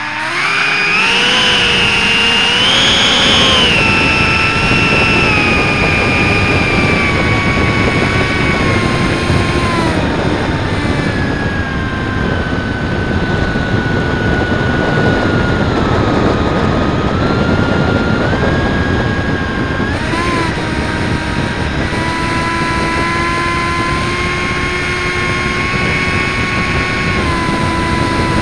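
Onboard sound of an RC Zephyr V-70 flying wing's electric motor and rear pusher propeller running at high power: a loud whine that climbs in pitch over the first three seconds, eases down, then shifts up and down in steps as the throttle changes. A heavy wind rush on the microphone runs under it.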